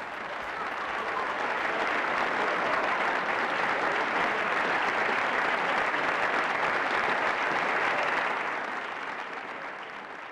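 A crowd applauding, swelling in over the first couple of seconds, holding steady, then fading out near the end.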